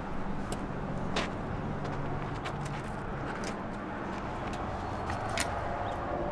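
Steady outdoor rumble, like distant traffic, with a few sharp clicks and knocks as a heavy double door is pulled open by its handle and swings shut, the sharpest click about five seconds in.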